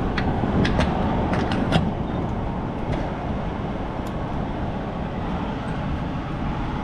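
Metal fuel-pump nozzle clicking and clattering as it is pushed into a truck's filler neck, with several sharp clicks in the first two seconds and one more near the middle, over a steady low background rumble.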